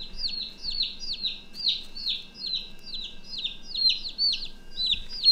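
A baby chick peeping loudly and repeatedly, about three high, downward-sliding peeps a second.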